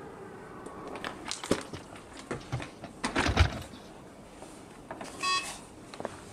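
Scattered knocks and thumps of luggage being handled at the back of a car, the heaviest about three seconds in. About five seconds in comes a single short electronic beep.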